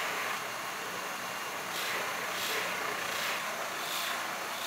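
Motor-driven buffing wheel spinning with a low steady hum while a wooden knife handle is pressed against it, giving a rushing friction hiss that swells each time the handle is pushed in. The friction heat is what polishes the wood.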